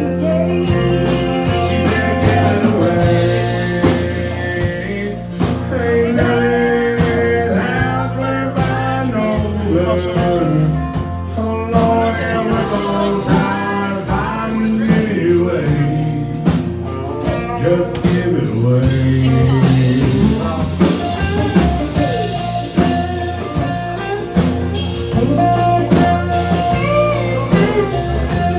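Live country band playing a song: acoustic and electric guitars, bass and drums, with a man and a woman singing. A fiddle joins near the end.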